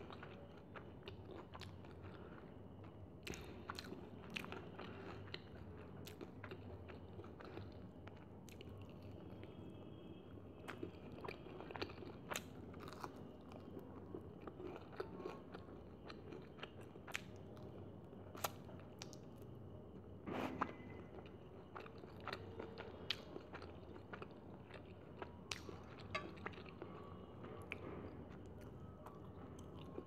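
A person chewing and crunching batter-fried chicken and chow mein noodles, with many short crisp crunches and one louder crunch about twenty seconds in.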